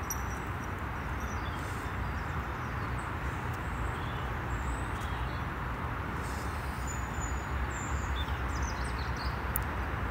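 Steady rumble of motorway traffic, with a few faint, high bird chirps above it.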